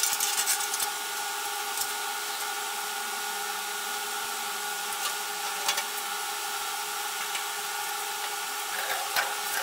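A bandsaw blade being fitted onto the saw's wheels: scattered light metal clicks and clinks, a few near the start, one in the middle and a couple near the end, over a steady background hiss with a faint hum.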